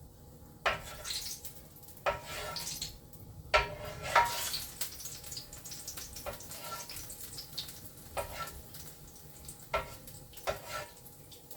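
Kitchen work: irregular knocks and clinks of dishes and utensils being handled, a dozen or so spread through the stretch.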